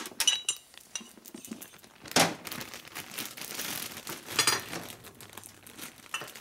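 Light metallic clinks and knocks with some rustling as pistons are handled and slipped onto the connecting rods of a Harley-Davidson shovelhead engine, with one louder clunk about two seconds in.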